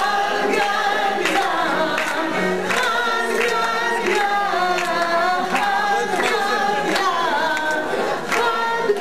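A group of people singing a song together, with a woman's voice over a microphone among them, and sharp hand claps on a steady beat, roughly three every two seconds.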